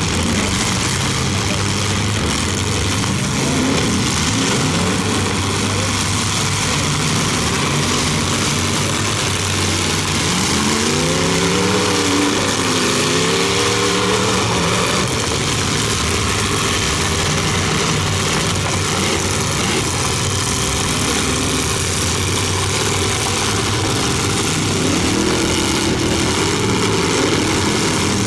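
Engines of several full-size derby cars running hard together in a dense, steady din, with one engine revving up and down about ten seconds in and again near the end.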